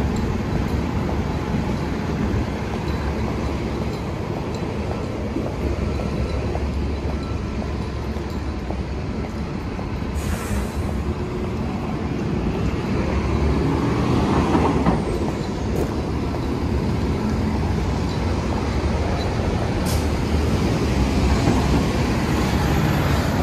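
City street traffic: a steady rumble and hiss of passing vehicles. A short hiss comes about ten seconds in, and a vehicle passes close, swelling and fading, around fifteen seconds in.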